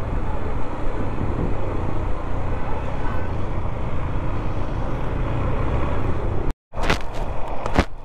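Motorcycle running at riding speed: steady engine and road noise. It drops out for a moment about six and a half seconds in, and a couple of sharp knocks follow.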